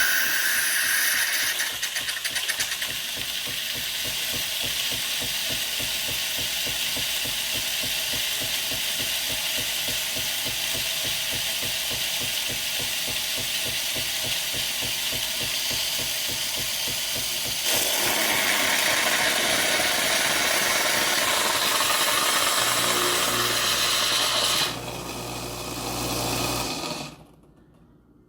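Philips Series 2200 (EP2231) espresso machine running: a steady mechanical whirr with a fine rapid rattle. It gets louder about two-thirds of the way in, a low hum joins near the end, and then it stops suddenly.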